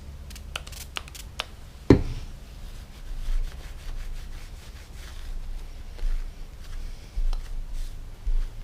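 Hands working at a workbench: a few light clicks, then a sharp knock about two seconds in as a part or tool is set down, followed by soft rubbing and dull thumps of handling, as with a rag wiping a metal surface.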